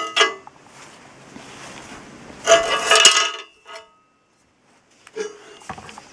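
Handling clatter: the circular saw's broken throat plate knocked and laid against a steel channel beam, with a louder clattering about two and a half seconds in, then a few faint taps near the end.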